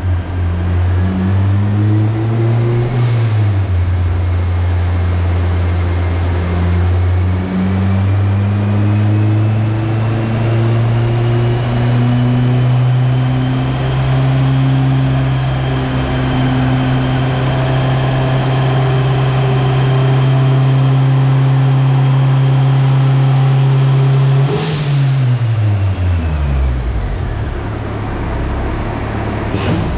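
Turbocharged K20Z3 four-cylinder engine of a 2008 Honda Civic Si running under load on a roller dyno, its note climbing slowly for over twenty seconds with a faint high whine rising alongside. About 24 seconds in the throttle closes with a sharp burst and the revs fall away; a short crack follows near the end.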